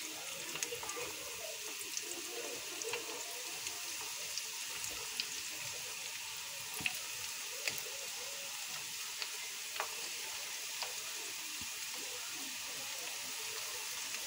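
Breaded chicken lollipops deep-frying in hot oil: a steady sizzle with scattered small pops and crackles.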